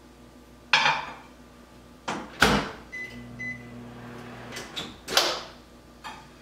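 Built-in microwave oven in use: a glass measuring cup is set down inside with a clatter, then the door shuts with two knocks. Two short keypad beeps follow and the oven starts with a low hum. The hum stops after a second and a half or so, and the door opens with a loud clunk about five seconds in.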